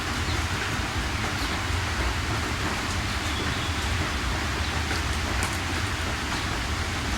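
Steady heavy rain: an even hiss with a low rumble, and now and then a sharper single drop ticking.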